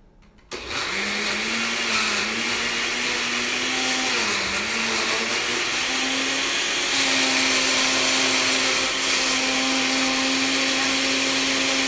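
Countertop blender starting up and running, churning frozen pineapple with vanilla ice cream and pineapple juice. Its motor pitch wavers and dips twice as the thick frozen mixture loads it, then runs steadier and slightly higher for the second half.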